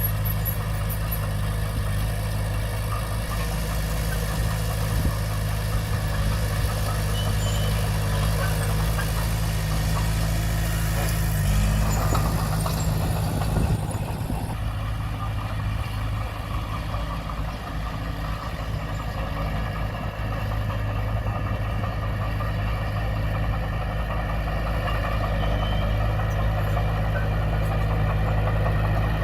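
Diesel engine of a Komatsu D20P bulldozer running steadily, briefly louder about twelve seconds in.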